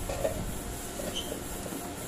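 A few faint knocks of pine boards being handled and set down on a wooden frame, over a steady background hiss.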